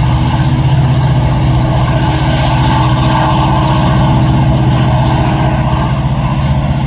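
GE C44-9WL diesel-electric locomotive's 16-cylinder engine running under power as the train pulls away, a loud, steady low drone.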